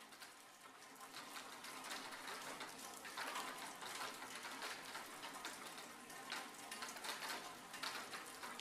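Faint rain-like pattering and crackle, a dense run of tiny clicks that fades in about a second in and then stays steady: the ambient noise bed that opens a music track before the instruments enter.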